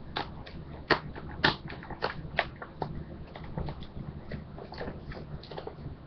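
Irregular crinkles and clicks of a trading-card blaster box's packaging being handled and torn open by hand, the sharpest snaps about one and one and a half seconds in.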